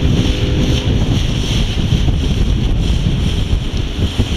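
Wind buffeting the microphone in gusts, over the wash of choppy water.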